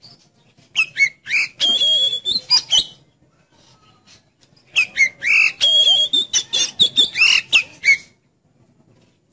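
Oriental magpie-robin (kacer) singing: two phrases of quick whistled notes and fast up-and-down sweeps, each holding one high steady whistle, the second phrase coming about five seconds in.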